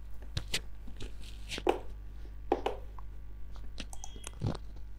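Scattered short clicks and rustling noises at irregular moments over a steady low hum.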